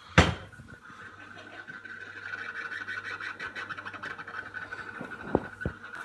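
Baumatic cooker's analogue clock timer making a steady high-pitched buzz, one tone with a fine rapid rattle in it: the really bad noise of a faulty clock. It grows louder about two seconds in. A sharp knock just after the start is the loudest sound, and two light taps come near the end.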